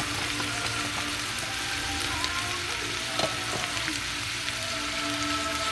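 Steady sizzle of curry-seasoned watermelon rind and onion frying in oil in a stainless steel pan, with a light tap about three seconds in.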